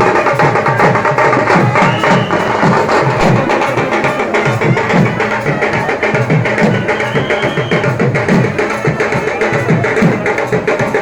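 Loud, fast drumming with dense clattering percussion, struck without a break; a short high tone sounds over it twice.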